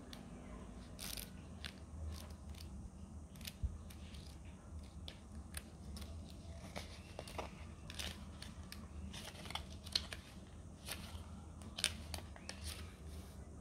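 Pages of a small paper instruction booklet flipped and leafed through by hand: irregular quick paper flicks and rustles.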